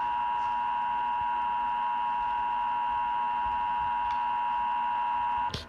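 Emergency Alert System attention signal: two steady tones of about 853 and 960 Hz sounding together, marking a Required Monthly Test. The signal cuts off with a click about five and a half seconds in.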